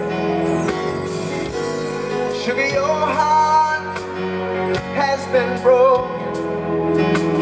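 Live R&B band music with piano, bass and drums, and a wavering melody line, sung without clear words, over held chords.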